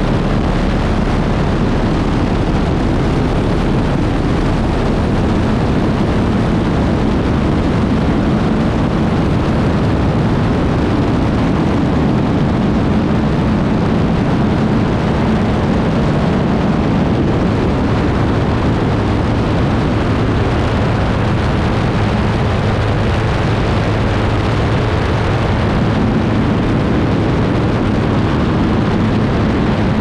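Thrush 510P turboprop engine and propeller running at takeoff power during the takeoff roll, a loud steady roar with a low hum and rushing air over the airframe.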